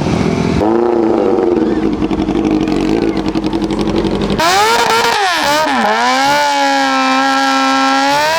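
Motorcycle engines running. About four seconds in, the sound switches abruptly to a higher-pitched engine that is revved down and up twice, then holds at a steady pitch.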